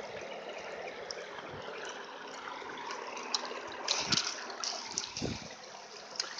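Mountain creek water running over a rocky bed, a steady rushing trickle. A few sharp clicks and knocks come about four seconds in, with a low thump just after five seconds.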